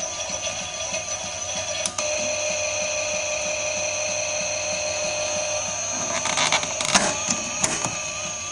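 Toy Miele washing machine's small electric motor whining as the drum turns the laundry. The whine wavers at first, then after a click about two seconds in holds a steady pitch; several sharp clicks come near the end.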